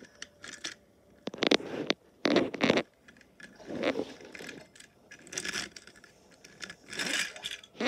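Handling noise: a series of short scrapes and rustles, about five in all, with scattered small clicks between them.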